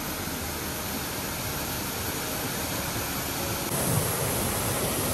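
Steady rushing of water from a creek waterfall, growing a little louder about two-thirds of the way through.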